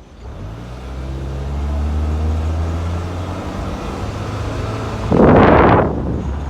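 Motor vehicle engine picking up speed and then running at a steady pitch, with a loud rushing whoosh about five seconds in.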